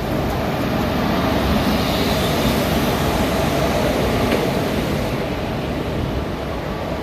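Indian Railways passenger train running along the track: a steady rumble and rushing noise that swells slightly in the middle, its high hiss easing off after about five seconds.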